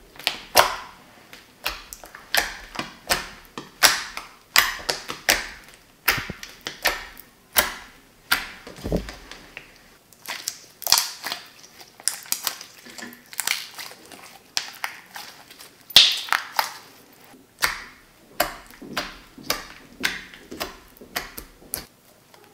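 Glue-free slime made from dish soap and sugar being squeezed, pressed and stretched in the hands. It gives a run of sharp wet pops and squelches, about one or two a second.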